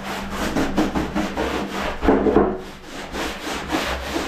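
Quick repeated rubbing or scraping strokes, several a second, loudest about two seconds in.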